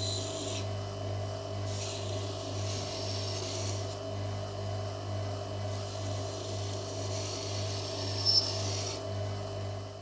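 Belt sander running with a steady hum while a steel watch-bracelet link is ground against its abrasive belt; the rasping of metal on the belt comes and goes as the link is pressed on and eased off. A short sharp click about eight seconds in.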